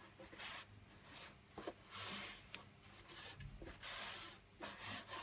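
Cloth wiping dust off the case of a QNAP TS-253 Pro NAS, heard as several separate rubbing strokes of about half a second each.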